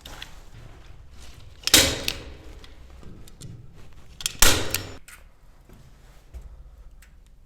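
Staple gun firing twice, two sharp clacks about two and a half seconds apart, as plaster mesh is stapled to the wall; faint clicks and rustling between them.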